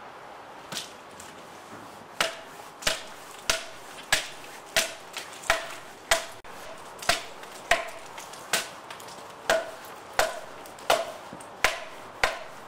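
Hand axe chopping bark off a larch log: a steady run of sharp blows, about one and a half a second, starting a couple of seconds in. It is debarking one side of the log so the fibres can be torn out to check for spiral grain.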